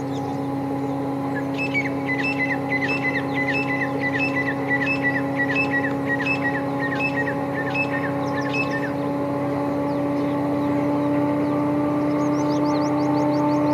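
EMD WDP4D diesel locomotive's V16 two-stroke engine running under power as it approaches, a steady drone that grows gradually louder and edges up slightly in pitch near the end. Over it a bird repeats short high calls about twice a second for several seconds, and near the end a quick run of high falling notes is heard.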